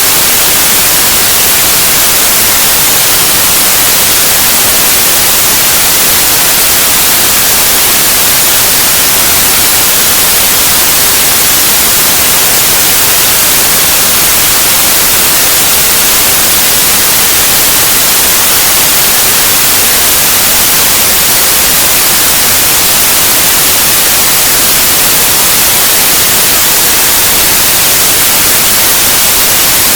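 Loud, steady white noise: an even, unchanging hiss, strongest in the high frequencies.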